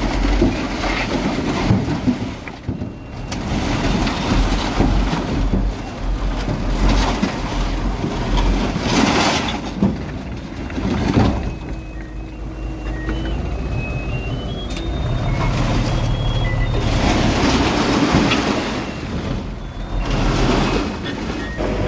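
Heavy diesel earthmoving machinery at work, a bulldozer and dump truck, with engines running steadily and surging in level several times. A few short, thin high tones step upward about halfway through.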